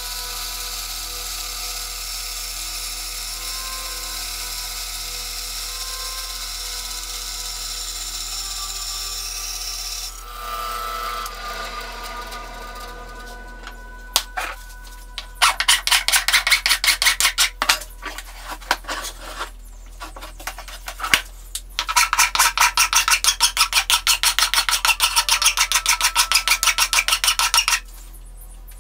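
Bandsaw cutting a 1/4-inch aluminium plate, a steady hiss with a high ring, for about the first ten seconds. About five seconds later the aluminium plate's edge is filed by hand, with quick back-and-forth strokes in long runs broken by brief pauses.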